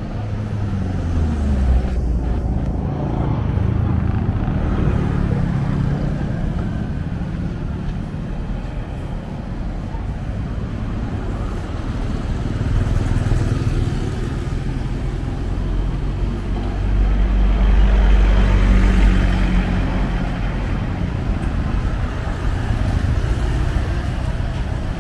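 Motor vehicles running and passing close by in street traffic. Their engine sound swells about a second in and again, loudest, about two-thirds of the way through.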